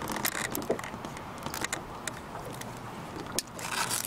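Pliers and fishing-lure hooks clicking and rattling as a northern pike is unhooked in a landing net: a scatter of short, light metallic clicks over a low steady background.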